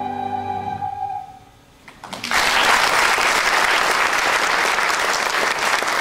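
A musical number with a soprano and small orchestra ends on a long held note that fades out about a second and a half in. After a short pause, the theatre audience breaks into applause.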